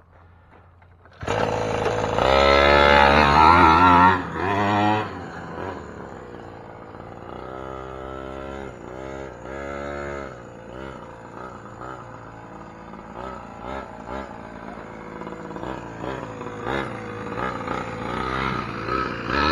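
Small gasoline two-stroke engine of a 1/5-scale Primal RC Raminator monster truck, coming in suddenly about a second in and revving hard, its revs rising and falling as the truck drives. It revs up and down again later, then runs at lower throttle with small blips.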